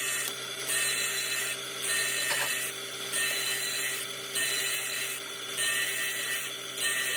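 Rhythmic scraping strokes from tool work on metal, roughly one a second, over a steady machine hum.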